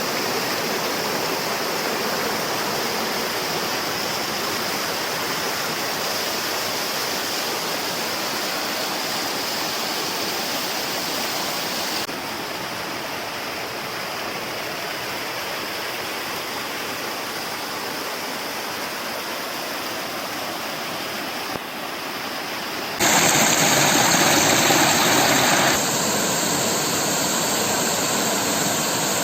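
Water rushing down a rain-fed waterfall, a steady, even rush of noise. It steps down slightly about twelve seconds in and jumps louder for about three seconds after twenty-three seconds, as the shots change.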